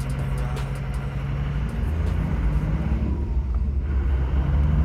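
Toyota 12H-T turbo-diesel inline-six of a 1987 Land Cruiser HJ60 running as the truck drives along, a steady low drone. About two seconds in, the engine note shifts and rises.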